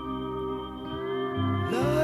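Instrumental passage of a slow pop song: sustained chords over a steady bass line, with one note sliding up near the end.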